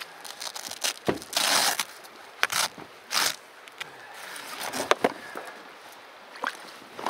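Gear being rummaged in a loaded canoe: rustling and crinkling of nylon dry bags and the spray cover, in several short bursts, with a few scrapes and light knocks against the hull.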